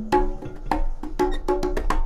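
Background music with a quick, steady percussive beat and short pitched notes.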